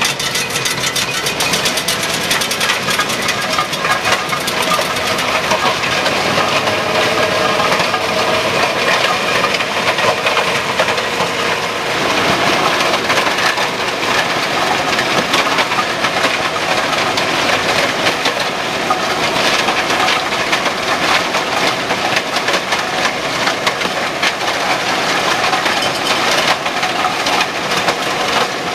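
Tractor-mounted Valentini stone crusher grinding up road asphalt and stony soil: a steady, dense crackle and clatter of crushed stone over the tractor's running engine.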